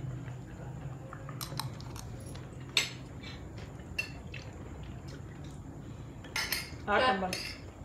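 Metal cutlery clinking lightly on a ceramic plate a few separate times during a meal, over a low background hum. A brief vocal sound near the end.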